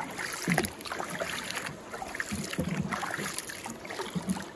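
Water sloshing and splashing around a small boat, with irregular knocks.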